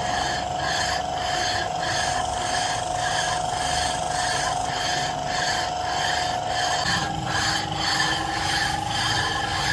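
Rhythmic metal-on-metal scraping as a round steel plate is rubbed back and forth by hand over an engine casting, about two strokes a second.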